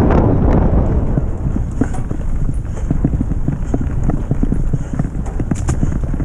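Mountain bike ridden fast over a bumpy forest dirt path: dense, irregular rattling and knocking from the bike and the tyres on the rough ground, with a few sharper clicks.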